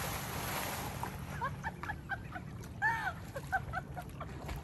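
Splash of a swimmer plunging into the lake, the spray hissing and settling over the first second or so, followed by a run of short chirping calls.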